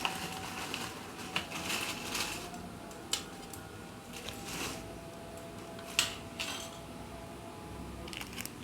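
Clicks and light clatter of a boxed meal's food containers and utensils being handled and opened, with a few sharp knocks and soft scraping in between.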